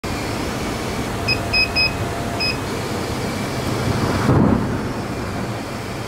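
A steady rushing noise with four short, high electronic beeps a little over a second in, and a brief swell of deeper noise about four seconds in.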